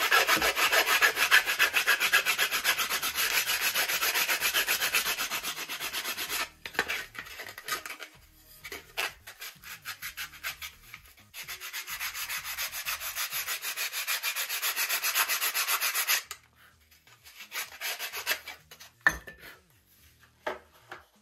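Balsa cowl block being hand-sanded on a sanding stick in quick back-and-forth rubbing strokes, with a short pause in the middle and the sanding stopping after about three-quarters of the time. Two light knocks follow near the end.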